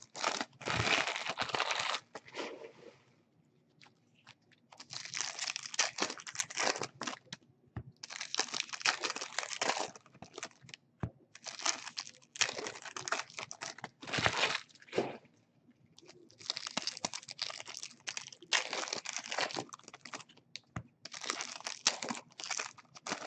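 Plastic wrapping on baseball card boxes and packs crinkling and tearing as it is pulled open, in bouts of a second or two with short pauses between.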